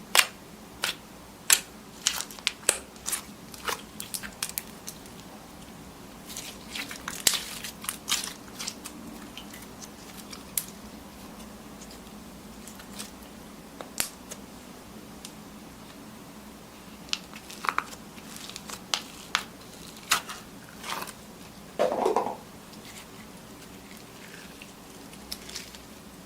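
Slime being pressed and squeezed by hand, giving irregular sharp crackles and pops, with one longer crunchy crackle late on.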